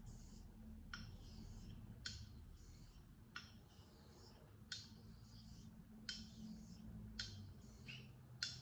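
Straight razor being honed on a Japanese natural stone with slurry: a faint swish of the blade across the stone between seven sharp clicks, about one every second, as the razor is turned over on its spine at the end of each stroke.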